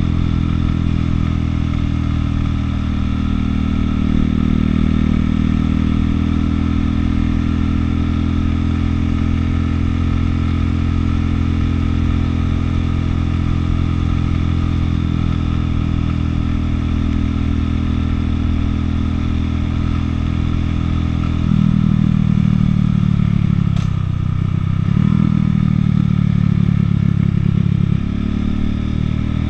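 Buell motorcycle with a Harley-Davidson-based engine running under way at a steady cruise. About three-quarters of the way through the engine note steps up and gets louder, then drops briefly and picks up again twice near the end.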